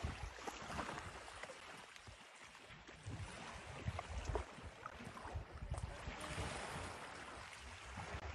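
Faint river ambience: water moving and lapping, with wind gusting on the microphone in low, uneven rumbles.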